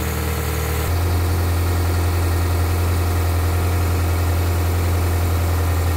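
Freshly rebuilt Toyota 2E 1.3-litre carbureted four-cylinder engine running steadily at a fast idle of about 1,300 rpm, held up because it is still cold. The engine note changes abruptly about a second in.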